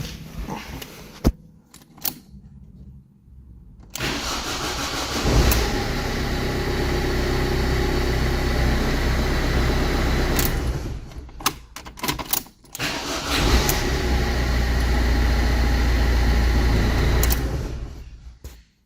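Ford car engine started and idling for about six seconds, then switched off. After a few clicks it is started again and idles before shutting down near the end. This is a start test after a repair of an immobilizer no-start fault.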